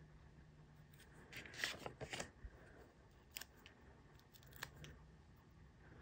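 Faint handling of die-cut cardstock pieces: soft paper rustling with a short burst of crinkling about one and a half to two seconds in, then a couple of small clicks.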